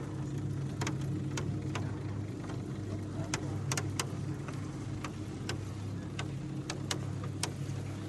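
Steady mechanical hum of a cable lift descending into a volcano's crater, with scattered sharp clicks and ticks at irregular intervals.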